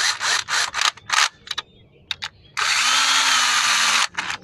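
Handheld power gun spinning cylinder head bolts down in sequence, bringing them down halfway. It runs in a series of short bursts over the first second and a half, then in one longer run of about a second and a half, then in quick blips near the end.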